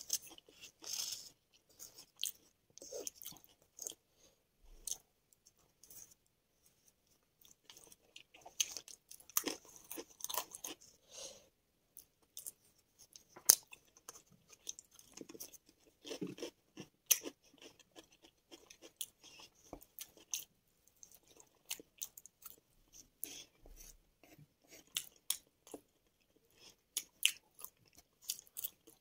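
Loud, close-up chewing and crunching of chilli Manchurian fries in sauce and salted potato chips, in irregular bites with sharp clicks scattered throughout.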